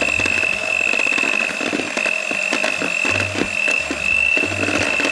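Electric hand mixer running with a steady high whine, its beaters working flour into kefir pancake batter, with scattered clicks through it.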